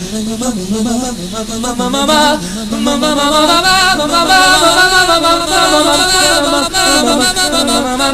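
A warbling, wavering voice making an "alien noise" over music, its pitch wobbling continuously and jumping higher about two to three seconds in.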